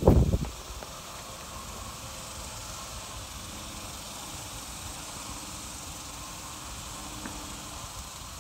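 A brief heavy thump at the start, then steady outdoor background hiss with a faint distant hum.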